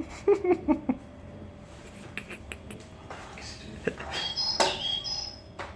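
A few short, sharp sounds in the first second, then a brief electronic bird chirp with clicks about four and a half seconds in, from an interactive feather cat toy.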